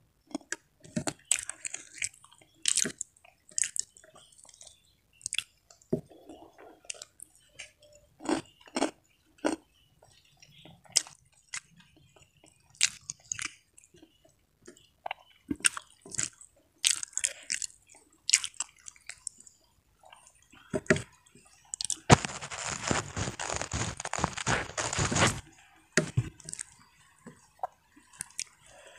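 A person eating with her fingers close to the microphone: chewing and crunching with many short clicks. About 22 seconds in there is a loud, dense crackling that lasts about three seconds.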